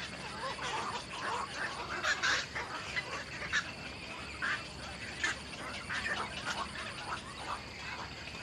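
Birds chirping in many short, irregular calls, with a few louder sharp chirps standing out.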